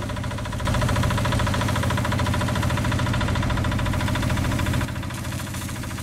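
Diesel engine of heavy road-paving machinery running steadily with a fast, even chug. It gets louder just under a second in and drops back about five seconds in.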